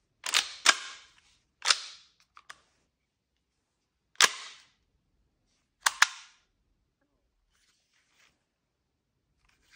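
Sharp mechanical clacks from a Tokyo Marui SIG P226 E2 airsoft pistol being handled and its action worked: a pair near the start, one more at about two seconds, another at about four, and a quick double near six.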